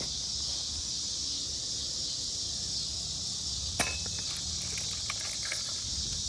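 Steady high-pitched chirring of crickets or other insects. A single sharp click about four seconds in, followed by a few small metallic clinks, like hardware being handled.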